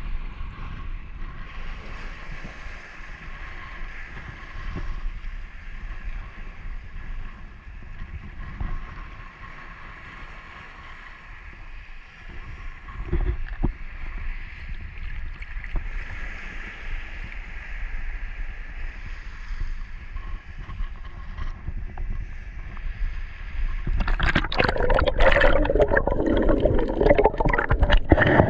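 Muffled sloshing of shallow sea water against a camera held at the surface, with a faint steady whine. Near the end it turns to loud splashing and bubbling crackle as the camera goes underwater.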